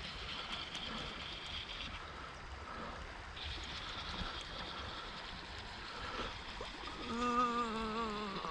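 Steady rush of flowing river water, with a high steady whine over it that drops out for about a second and a half. About seven seconds in, a short wavering, voice-like moan lasting a little over a second is the loudest sound.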